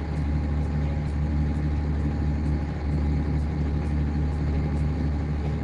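The inboard engine of a 1974 Gulfstar 44 motor sailor running steadily with the boat under power: an even, deep drone with a thin steady tone above it and a faint tick about twice a second.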